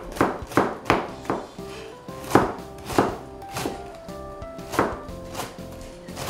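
Chef's knife shredding a head of cabbage on a plastic cutting board: uneven chopping strokes, about three a second at first, then slower and more spaced out.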